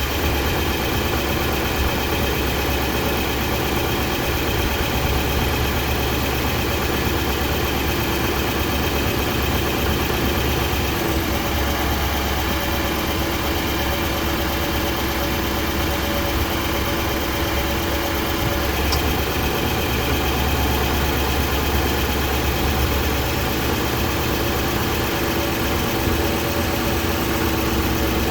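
Nissan Titan Pro-4X engine idling steadily, which the owner suspects may be starting to knock.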